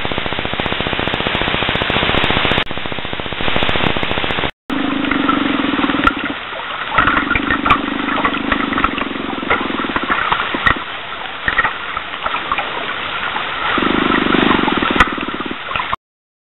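A fish finder's sonar heard on an underwater recording, a dense fast-pulsing hiss, for about the first four seconds. After a brief break comes a steady hum near 300 Hz in three stretches of one to three seconds over scattered crackling clicks, which the recordists take for the call of an unknown lake animal.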